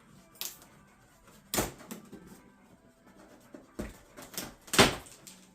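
Cardboard packaging being cut and pulled open: several short knocks and scrapes, the loudest a little before the end.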